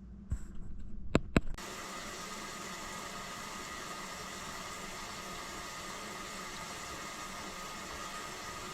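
A few clicks, then a half-horsepower Project Source garbage disposal switches on about a second and a half in and runs steadily with water flowing through it, cutting off just before the end.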